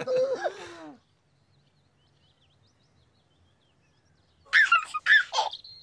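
A high, childlike voice trails off in the first second. After a pause of near silence, a baby giggles in two short bursts near the end.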